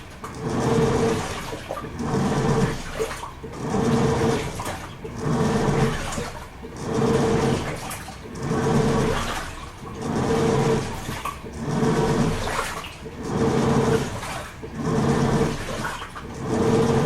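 Toshiba AW-42SEE4 top-loading washing machine in its wash cycle: the motor drives the pulsator in a regular surge about every second and a half, each stroke humming and churning the water, with short pauses between.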